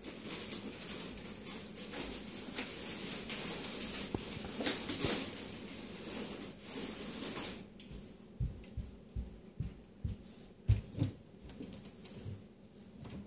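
Rustling with scattered clicks and taps. The rustling stops about seven and a half seconds in, leaving a few separate knocks.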